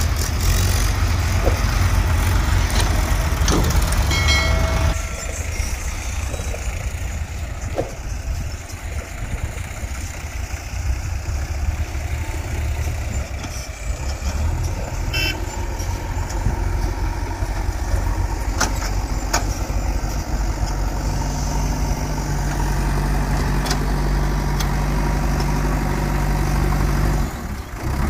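Diesel engines of a Sonalika tractor and a JCB backhoe loader running steadily with a deep rumble. The sound changes abruptly about five seconds in, and there is a brief high pitched tone just before that.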